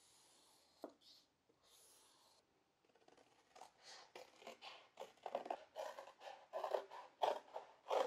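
A marker drawing short strokes along a ruler on cardboard, then scissors cutting through the cardboard in a run of snips, about three a second, growing louder towards the end.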